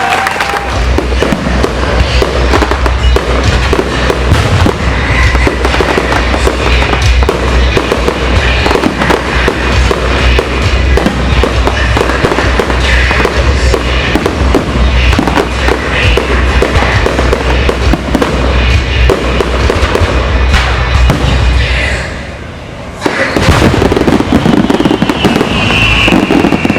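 Fireworks barrage: a dense, continuous run of bursts and crackling over a deep rumble, with music playing along. It drops away for about a second near the end, then picks up again.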